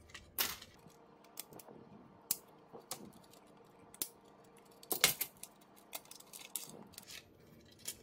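Irregular light clicks and taps of hard plastic parts and metal tweezers as a robot vacuum's drive-wheel module is handled and taken apart, with a louder cluster of knocks about five seconds in.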